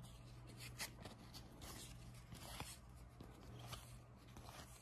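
Faint rustling and sliding of trading cards as a stack is thumbed through, card over card, with a few soft flicks spread through, over a low steady hum.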